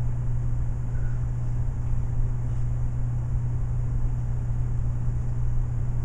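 Steady low hum and rumble of a room's background noise, unchanging throughout.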